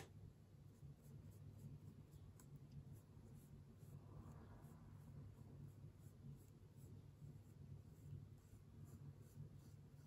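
Faint, soft strokes of a small watercolour brush on paper over a low, steady hum: near silence otherwise.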